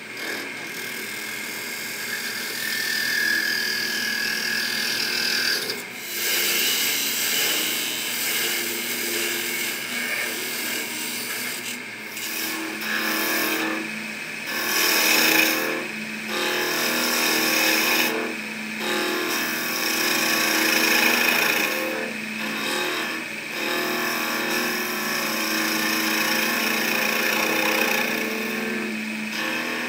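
Wood lathe running with a steady hum while a hand-held turning tool cuts the spinning wooden handle, a shaving, cutting noise that comes and goes in passes, with several short breaks as the tool is lifted.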